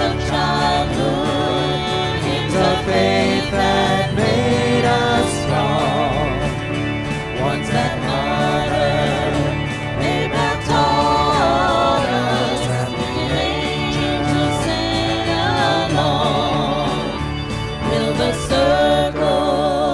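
Gospel music: several voices singing to instrumental accompaniment.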